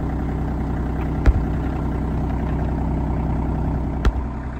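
RK25 compact tractor's engine running steadily, with two sharp clunks, one about a second in and one near the end.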